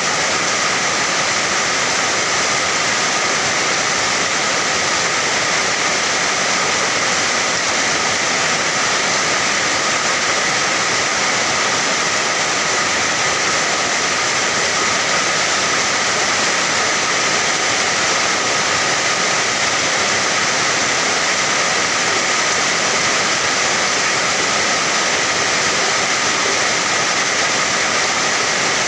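Steady rain, a dense even hiss with no single drops or breaks standing out.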